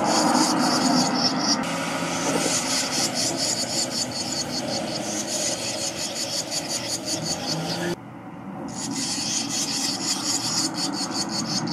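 Barn swallow nestlings giving rapid, raspy begging calls while a parent feeds them at the nest. The calls break off briefly about eight seconds in, then resume.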